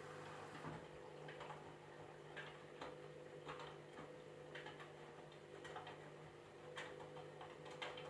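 Candy Grand'O Vita front-loading washing machine in its wash tumble: wet laundry dropping and sloshing in the drum as irregular faint clicks and splashes, over a steady low hum from the machine.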